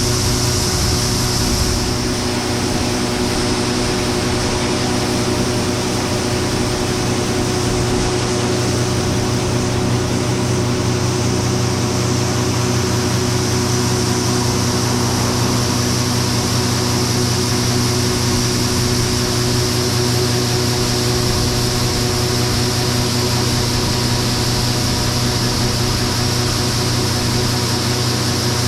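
John Deere 9570 STS combine running steadily: a constant machine hum with several steady tones and a hiss over it.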